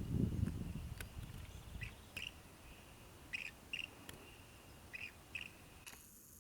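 A bird chirping in short, high calls that come in pairs, about six in all, over a low rumble that fades out about two seconds in.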